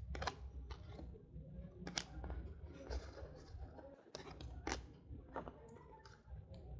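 Football trading cards being handled by hand: cards sliding against each other, with sharp snaps and clicks as each card is flicked through the stack, about half a dozen in all, over a low rumble of handling noise.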